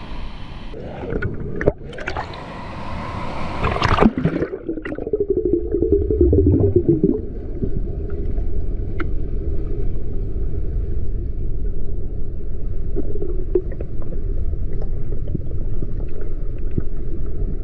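River water splashing and rushing for about four seconds, then the sound turns suddenly muffled and low: the gurgle and rush of water heard underwater while diving for crayfish.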